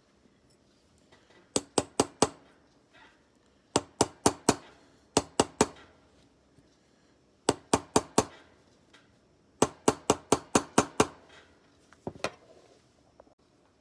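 Small hammer tapping metal in quick bursts of four to seven bright, ringing strokes, with pauses of about a second between the bursts.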